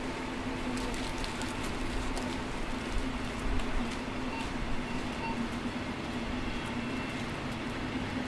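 Passenger train of couchette coaches rolling slowly past on the station track: a steady rumble with a low hum, and scattered sharp clicks in the first few seconds.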